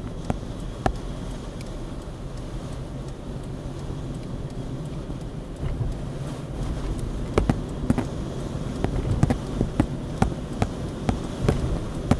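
A car driving, heard from inside: a steady low rumble of engine and road noise. Irregular sharp clicks and knocks come through it, more of them in the second half.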